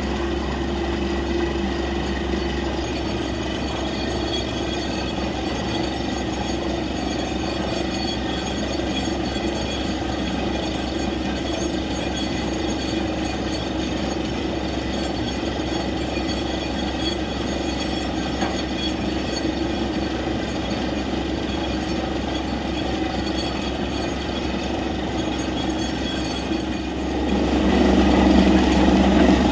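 Borewell drilling rig running steadily, with water gushing and splashing out of the bore. Near the end the rig's drone gets louder.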